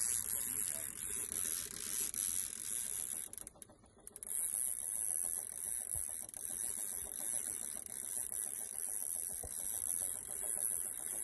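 Baitcasting fishing reel being cranked steadily to bring in a hooked fish, its gears whirring with a fast clicking rhythm, with a short pause about three and a half seconds in.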